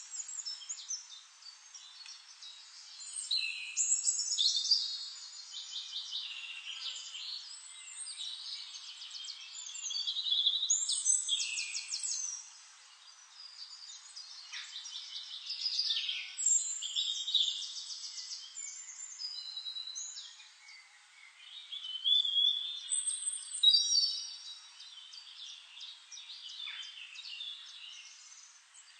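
Songbirds singing: high chirps, whistled phrases and rapid trills of quickly repeated notes, several songs overlapping and swelling and easing in uneven bouts.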